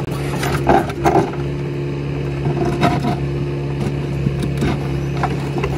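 Mini excavator's engine running steadily as its bucket digs into rocky soil, with scraping and knocks of stones about a second in and again near three seconds.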